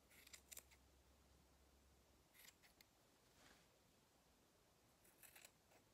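Scissors trimming the bottom ends of a yarn tassel: faint snips through the yarn in a few scattered groups.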